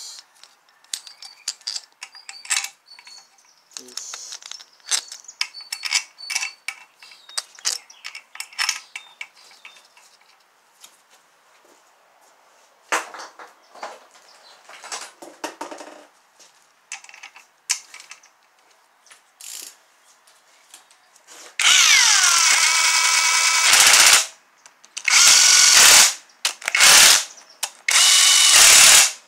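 A cordless power tool runs down the oil pump bolts on a Toyota 2AZ-FE engine block in four short bursts near the end, the first starting with a falling pitch. Before that come scattered light clicks and taps of bolts and hand tools on the metal.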